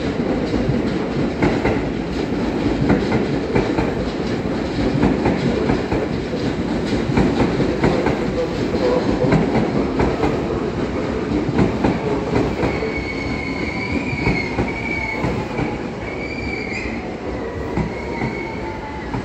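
Seibu Ikebukuro Line stainless-steel electric commuter train pulling into the platform: steady rumble of the wheels with repeated clicking over rail joints. About two-thirds of the way in, a high wavering squeal sets in, along with a faint falling whine.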